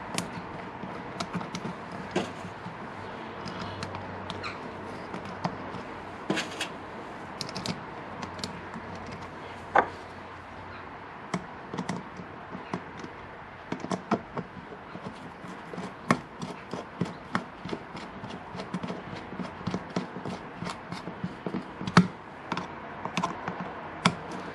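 Small screws being started by hand and driven with a JIS screwdriver into a bank of Mikuni carburettors: irregular light clicks and taps of metal on metal, a few sharper ones, over a faint steady hum.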